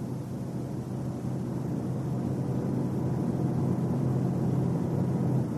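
Car driving at highway speed: a steady low drone of engine and road noise that slowly grows louder.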